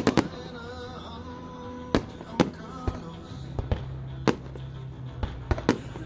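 Aerial firework shells bursting: a string of sharp bangs, about one or two a second, over music.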